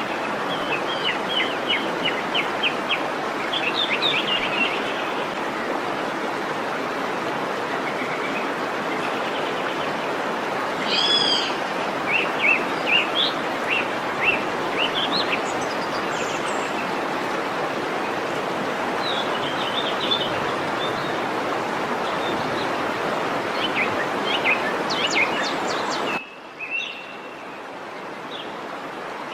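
Waterfall rushing steadily, with small birds chirping and trilling over it in several short spells. Near the end the water noise drops away abruptly, then slowly builds back up.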